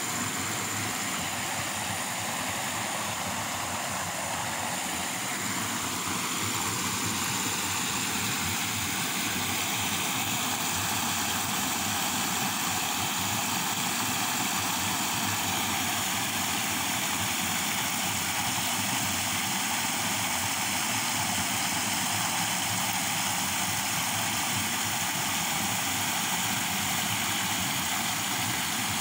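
Steady rush of a rain-swollen creek pouring over a small concrete spillway, churning into whitewater.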